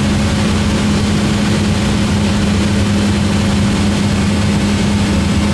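Cessna 172's piston engine and propeller running steadily in flight, heard inside the cabin: an unchanging low hum over a constant rush of air.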